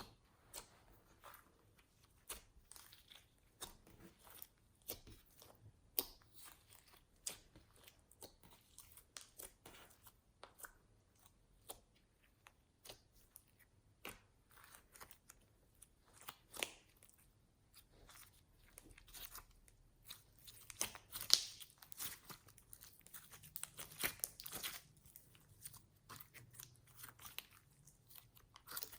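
Slime being squeezed, stretched and folded by hand, giving faint, irregular sticky pops and clicks. They grow busier about two-thirds of the way through.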